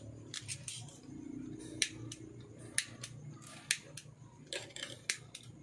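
Scattered sharp clicks and small ticks, about seven in all and unevenly spaced, as enamelled copper magnet wire ends and the ferrite-ring coil assembly are handled, over a faint low hum.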